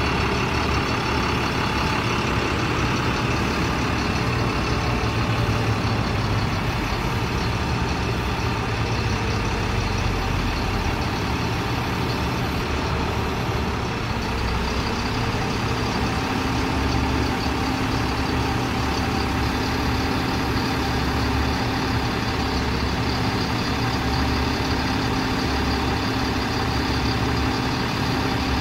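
Ford F750 crane truck's engine running steadily while the IMT knuckle-boom crane is worked and unfolded. A steady hum joins it about halfway through.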